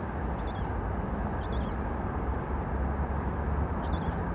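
Steady low outdoor rumble, with a bird giving a few short chirps, three times over about four seconds.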